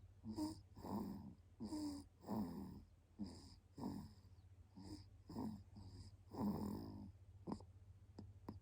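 Newborn baby snoring in deep sleep: short, quick noisy breaths about one a second, some with a squeaky pitch, over a faint steady low hum. A few sharp clicks near the end.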